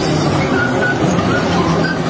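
Amphibious excavator on pontoon tracks running and crawling along, a loud steady diesel engine and track noise.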